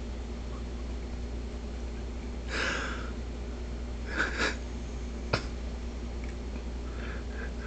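Stifled, breathy snorts of suppressed laughter: one about two and a half seconds in and two quick ones about four seconds in, then a single sharp click, over a low steady hum.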